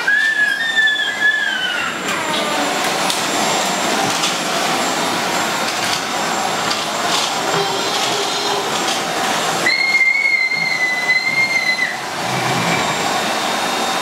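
AEG Bubble canister vacuum cleaner running steadily as its floor nozzle is pushed over a wooden floor, a rushing hiss of suction. A high whistle rises over it and falls away in the first two seconds, and a flat whistle returns for about two seconds near the end.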